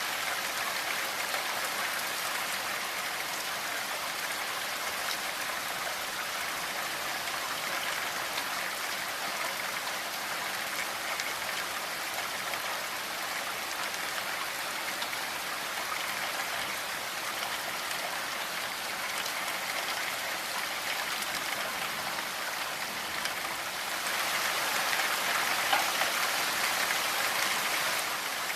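Steady rainfall, an even hiss of drops on a surface, that turns heavier and louder about four seconds before the end.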